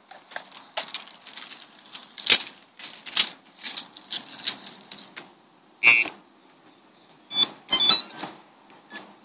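Irregular clicks and rustling, with a short sharp bright ring about six seconds in and a quick run of high metallic tinkling tones near the end, like keys jingling; no engine is heard.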